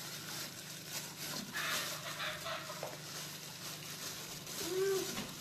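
Plastic-bag gloves crinkling and rustling as hands tear apart boiled chicken in a metal bowl, over a steady low hum. A faint short call sounds near the end.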